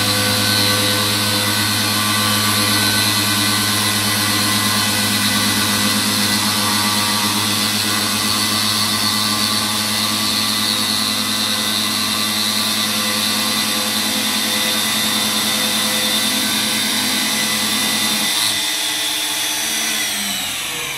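CNC coordinate drilling machine's spindle motor running steadily while drilling into a concrete cladding panel, a constant machine whine. Near the end the sound changes and the pitch falls away as the spindle winds down.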